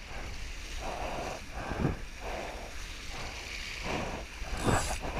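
Water rushing and spraying past the hulls of a Hobie 16 catamaran sailing fast through surf, with wind buffeting the microphone. Louder surges of spray come about two seconds in and again near the end.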